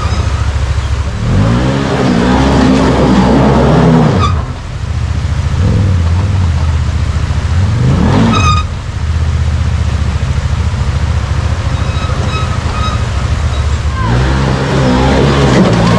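Can-Am side-by-side engine revving in three hard bursts of throttle, pitch climbing during each, as it struggles to climb out of a creek over a rock ledge. The rush of the creek's water runs under it.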